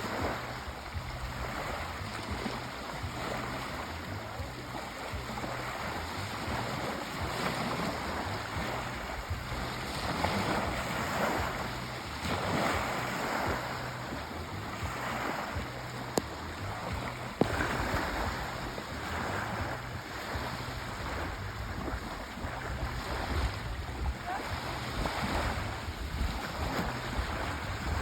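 Sea waves washing ashore, a steady rush that swells and eases every couple of seconds. Two short sharp clicks stand out a little past the middle.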